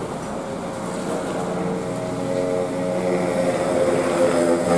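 Diesel engine of a large coach bus running as the bus pulls in close. A steady drone grows louder from about two seconds in.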